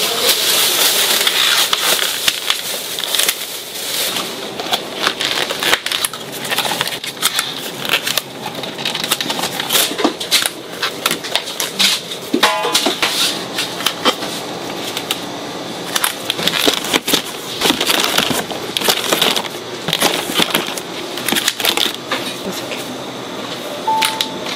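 Knife cutting fruit on a cutting board: irregular chops, knocks and crackling clatter, with a short beep near the end.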